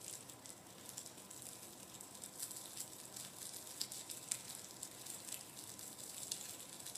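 Foley sound effect of sausages sizzling on a barbecue grill: a crackling hiss with many small irregular pops, growing slightly louder.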